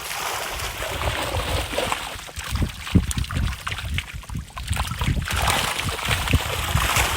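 Water splashing and trickling as a fishing net is hauled up out of the water, with wind rumbling on the microphone.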